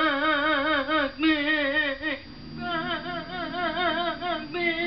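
A woman's long, wavering wail with a fast, even vibrato, held on one pitch: an exaggerated comic cry of pleasure. It breaks off about two seconds in and starts again on a slightly higher note.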